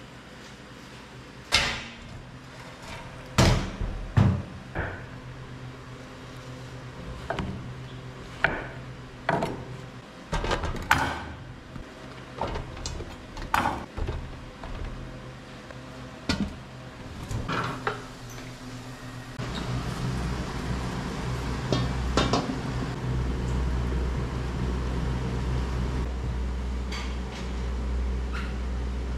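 Stainless steel pots, steamer and lids clanking and knocking as they are handled on a gas stove. About two-thirds of the way in, a steady low rumble of the lit gas burner sets in under the steaming pot.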